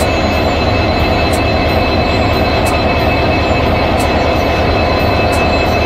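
WDP4D diesel-electric locomotive's 16-cylinder two-stroke EMD 710 engine running steadily at close range: a deep, even rumble with a thin steady whine on top.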